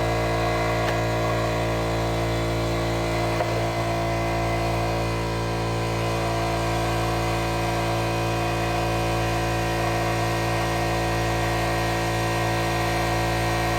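Air compressor running steadily, a constant motor hum made of many held tones, while air is being pumped into a scooter tire to seat its bead.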